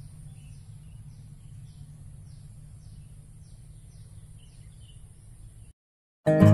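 Faint outdoor background sound: a low steady rumble and a high steady hiss, with faint short chirps, likely from a bird or insect, repeating about twice a second. The sound cuts out shortly before the end, and loud acoustic guitar music starts right after.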